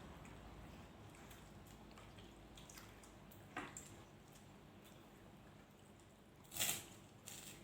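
Quiet eating sounds: faint chewing and squishing of food with scattered small clicks, and a short, louder noise about six and a half seconds in.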